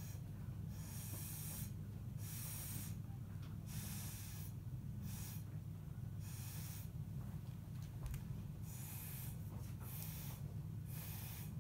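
Close-up breathing, a short hissing breath about once a second, over a steady low hum.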